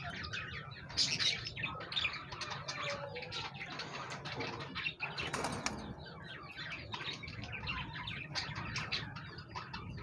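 Many cage birds chirping in short, overlapping calls, a steady busy chatter with no one call standing out.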